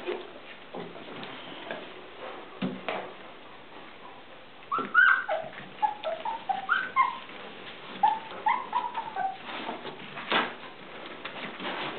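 Two-week-old golden retriever puppies squeaking and whining in a rapid string of short, high, sliding cries, starting about five seconds in and lasting a few seconds, with a few knocks before and after.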